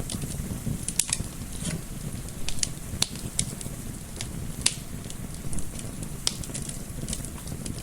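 Wood fire in a fireplace crackling, with irregular sharp pops and snaps several times a second over a low, steady rumble.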